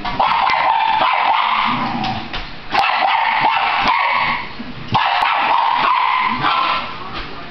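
Welsh terrier barking and yipping excitedly, with whining, at dogs on a television screen, in three long bouts of about two seconds each.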